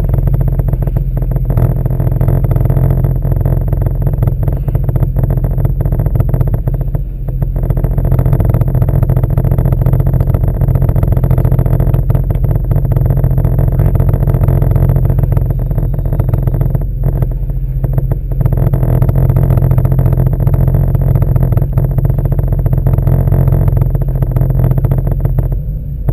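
Sea-Doo GTX 260 iS Limited personal watercraft's supercharged Rotax 1503 three-cylinder engine running steadily at slow, no-wake speed: a deep, steady drone that dips briefly twice.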